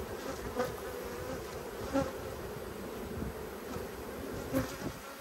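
Steady buzzing of a mass of honeybees around an open hive, from a colony the beekeeper calls a bit pissy, stirred up and defensive. A few light knocks of wooden frames being handled come through about half a second, two seconds and four and a half seconds in.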